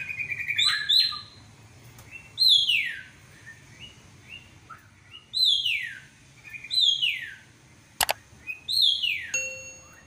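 Caged black drongo singing: loud notes that slide down from high to lower pitch, repeated every second or two, with short chirps in between. A single sharp click comes about eight seconds in, and a brief steady tone near the end.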